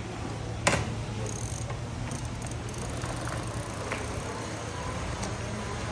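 Murf Higgs fat-tire electric bike being ridden: a steady low hum and rushing noise, with one sharp click under a second in.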